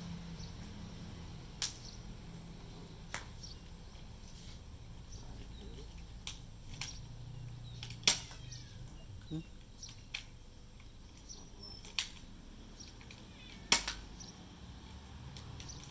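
Toy dart pistol being fired again and again: short, sharp snaps at uneven intervals, about four loud ones (a second and a half in, around eight seconds, twelve seconds, and near the end) with fainter clicks between them.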